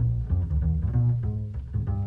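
Small jazz group playing an instrumental break. A plucked double bass is prominent in the low notes under a run of short, higher melody notes.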